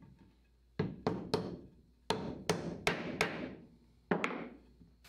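Sharp knocks and taps, about nine in three clusters, each with a brief ring: a dowel-jointed wooden picture frame being put together and clamped on a workbench after glue-up.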